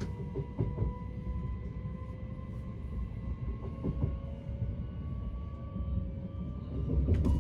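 Class 387 Electrostar electric train heard from inside the carriage as it pulls away: a steady low rumble with a faint motor whine slowly rising in pitch, and a few short knocks.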